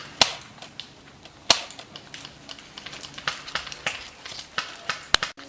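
Scattered single shots from airsoft guns: sharp, irregular snaps, the loudest two in the first second and a half and fainter ones after, cut off suddenly near the end.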